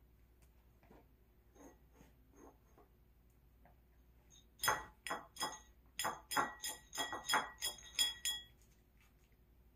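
A small ceramic food bowl clinking as a poodle eats dry kibble from it: a quick run of sharp, ringing clinks, about three a second, starting about halfway through and lasting some four seconds, with faint ticks before it.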